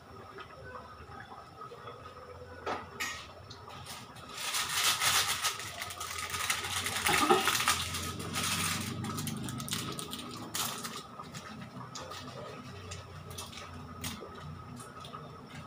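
Kitchen clatter of pots, dishes and utensils being handled, with scattered clicks and knocks. About four seconds in, a louder hissing rush begins and runs for roughly five seconds, over a faint steady whine.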